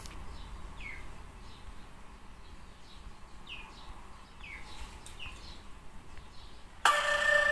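Faint background chirps of small birds, repeated short falling notes. Near the end, a loud call on a steady pitch cuts in and lasts about a second.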